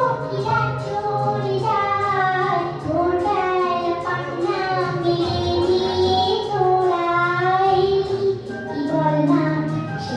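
A song with a child's singing voice carrying a wavering melody over instrumental backing.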